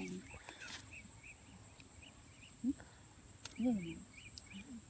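Faint outdoor ambience with a steady series of short high chirps, about three a second, from a small animal; a brief low voice sound breaks in near the middle.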